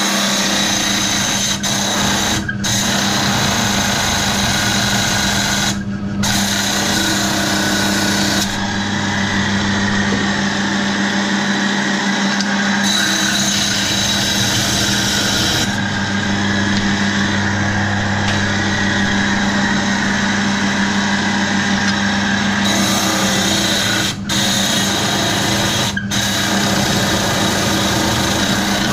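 Water-cooled diamond trim saw running with a steady hum while its blade grinds through rough opal, the cutting noise dropping away briefly a few times as the stone is eased off the blade.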